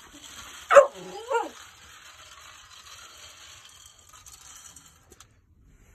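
Labrador retriever puppy giving a sharp yip, falling in pitch, and then a short rising-and-falling whine, about a second in.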